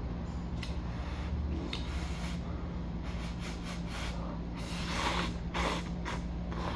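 A person slurping instant cup noodles with two long slurps about five seconds in, over a steady low hum.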